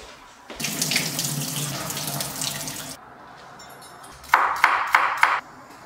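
Water running from a kitchen tap into a sink for about two and a half seconds, then a few quick clanks of metal cookware.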